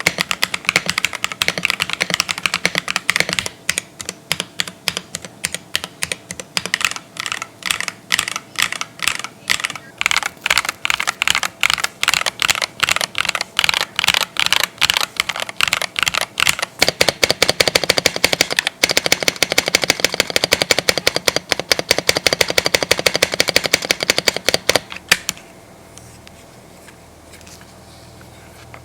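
Higround Pokémon mechanical keyboard being typed on: separate key clacks at about three a second, then fast continuous typing from about 17 seconds in, stopping at about 25 seconds.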